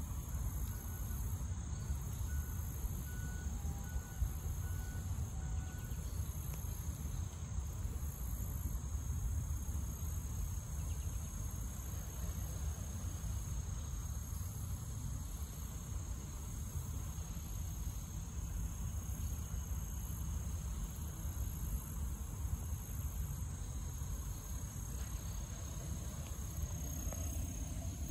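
Insects chirring steadily in a high, even drone over a constant low rumble.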